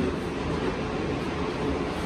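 Steady running hum and rumble of machine-shop machinery, even throughout, with a faint steady tone.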